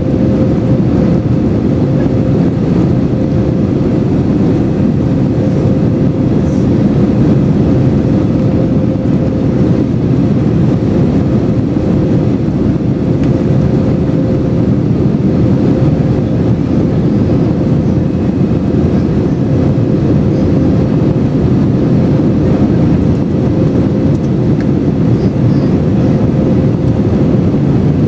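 Steady engine and airflow roar of an Airbus A321-200 heard inside the passenger cabin, with a steady hum.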